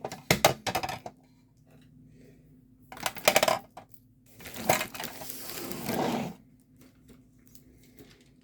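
Small hard objects clattering and knocking while being handled, with a burst of clicks at the start and another cluster about three seconds in, then a couple of seconds of rustling.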